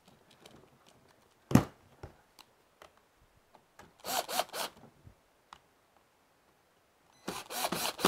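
A single knock about one and a half seconds in. Then a Milwaukee M12 cordless screwdriver whirs in short bursts as it drives a screw through a deadbolt latch plate into hardwood, once around four seconds in and again near the end.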